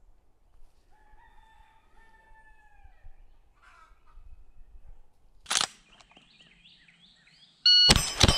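A rooster crows once, a long call, about a second in, and a sharp snap comes midway. Near the end a short electronic beep is followed at once by rapid gunshots from a lever-action 1873 Winchester rifle in .32-20 (32 WCF); these shots are the loudest sound.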